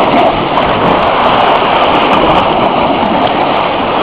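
Loud, steady rush of fast-flowing water churning through a concrete channel, with splashing as a person wades through it.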